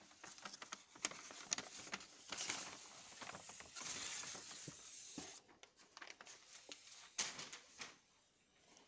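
Paper shooting target being handled and folded away, rustling and crackling with many small sharp clicks. It is busiest over the first five seconds, then comes in shorter crinkles.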